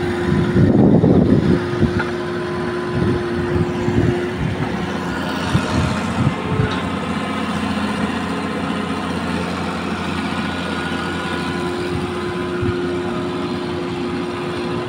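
Hitachi Zaxis 210 hydraulic excavator's diesel engine running steadily as the machine works its bucket in a pile of black soil, with a louder surge about a second in.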